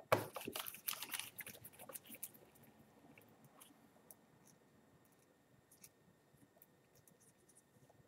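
Crackly rustling of gloved fingers working a small part, lasting about two seconds. Then faint, scattered clicks from a small screwdriver at the tablet's plastic back cover.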